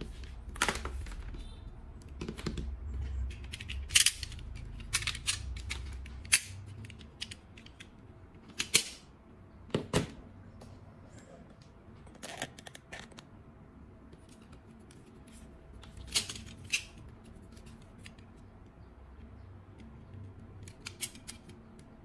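Irregular sharp clicks and snips of hand tools at work, about a dozen spread unevenly, with a low rumble under the first six seconds.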